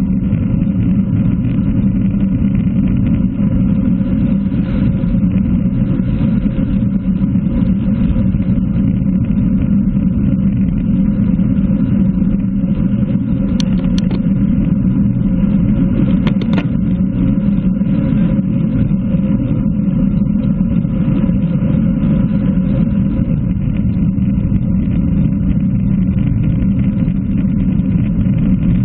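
Wind rushing over the microphone of a camera mounted on a road bike at about 42 km/h, with the hiss of tyres on a wet road. A few short sharp clicks come about halfway through.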